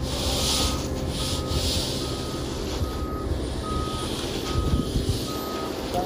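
Concrete mixer truck reversing: its back-up alarm gives short, even beeps a little faster than one a second over the low running of its diesel engine, with intermittent scraping of rakes through wet concrete.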